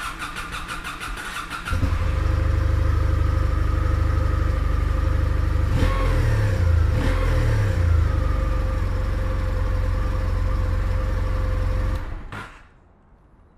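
Kawasaki W800's air-cooled parallel-twin engine through its stock exhaust. The electric starter cranks for under two seconds, then the engine catches and idles steadily, is blipped twice about halfway through, and is switched off near the end.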